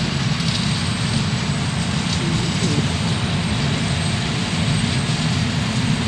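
Massey Ferguson 8740S tractor running steadily under load, pulling a Massey Ferguson 2270XD large square baler as it bales straw: a continuous mix of engine and baler machinery noise.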